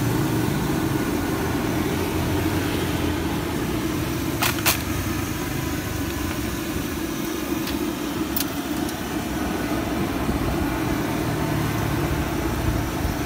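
Oil sizzling in a street vendor's deep-frying pan under a steady low, engine-like rumble. Sharp metal clinks come about four and a half seconds in and again about eight seconds in.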